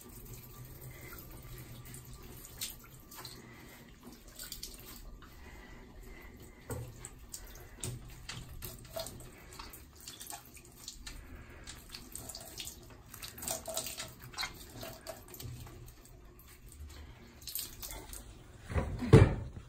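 Shower water spraying into a bathtub and splashing as a wet cat is rinsed, with scattered drips and small splashes; a louder thump near the end.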